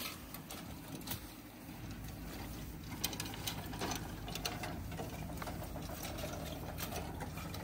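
A cart rattling and clicking as it is pushed along, with irregular sharp clicks over a low rumble.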